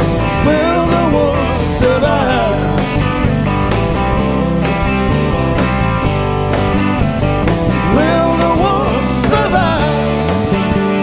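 Rock band playing live: electric and acoustic guitars over bass and drums, with a male voice singing a wavering melody line.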